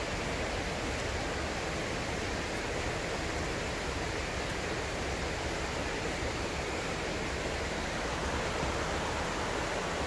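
Steady rushing of a shallow river running over rocks.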